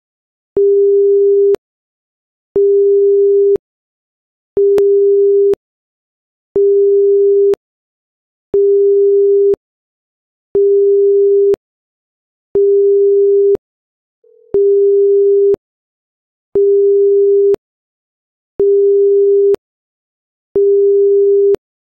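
Electronic alert beeps from a seismic monitor, sounding as its seismometer traces register an earthquake: a steady mid-pitched tone about a second long, repeated every two seconds, eleven times, each starting and stopping with a small click.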